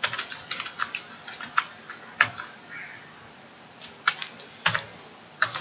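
Typing on a computer keyboard: a quick run of keystrokes through the first two seconds or so, then a few separate clicks.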